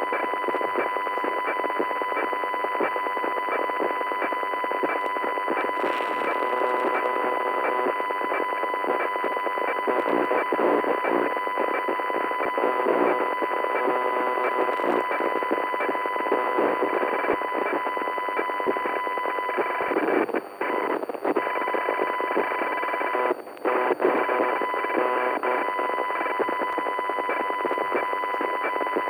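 Glitch sound effect of a working CPU: dense, fast-chattering electronic noise like computer interference, with a steady high whine running through it. The sound drops out briefly twice about two-thirds of the way through.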